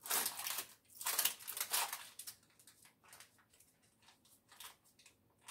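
Hands packing a soft lentil-and-vegetable mixture into a parchment-lined loaf pan, with the parchment paper rustling and crinkling. The rustling is densest in the first two seconds, then thins to a few soft scattered handling noises.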